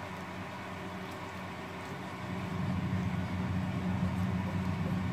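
Steady low mechanical hum of a kitchen appliance, such as a hob or extractor fan, stepping up louder a little over two seconds in.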